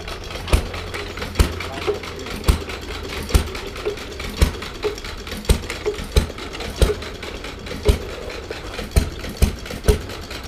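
A miniature Case square baler and the small engine driving it, running with sharp, fairly regular knocks about once or twice a second over a low engine hum.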